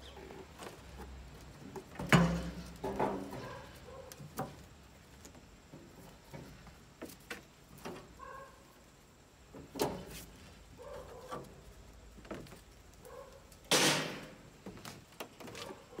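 Metal clanks and scrapes from cleaning out a charcoal barrel grill: a metal tool scraping and knocking on the firebox and its grates. Irregular knocks throughout, a loud clank about two seconds in and a longer rasping scrape near the end.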